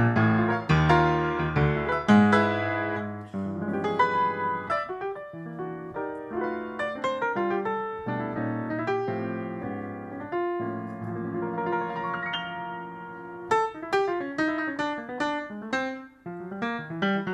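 Grand piano played live: chords and runs of notes, with a brief break about sixteen seconds in.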